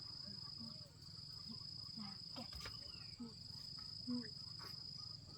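An insect's steady high-pitched trill that breaks off briefly every second or so, over a low background hum, with faint short pitched sounds and a single click about two and a half seconds in.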